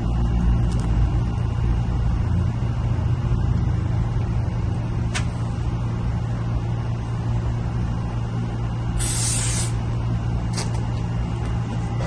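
Aerosol can of Collonil Carbon Pro waterproofing spray hissing as it is sprayed onto a lambskin handbag, with one short, stronger burst of spray about nine seconds in. A steady low traffic rumble runs underneath.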